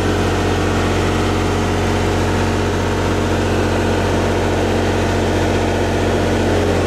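Steady drone of the Miller 400D welder-generator's engine running while it powers the house, carrying a light load of about 14 amps.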